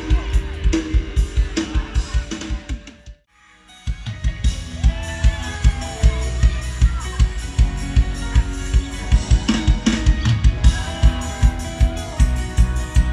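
Live Isan mor lam band music in a toei rhythm: a drum kit keeps a steady kick-and-snare beat under bass and gliding melody lines. The music drops out for under a second about three seconds in, then the band comes back in on the same beat.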